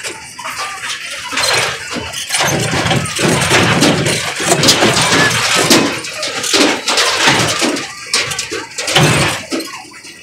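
Fairground monster-truck ride car clattering and jolting as it bounces along, a loud, continuous jumble of rattles and knocks.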